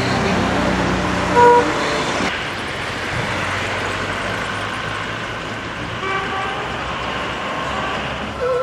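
Street traffic noise of passing cars, with a short car horn honk about a second and a half in, the loudest sound, and another brief horn toot about six seconds in.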